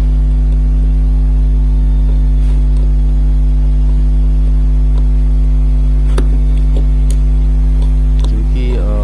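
Loud, steady electrical mains hum at 50 Hz, with a couple of faint sharp clicks a little past the middle.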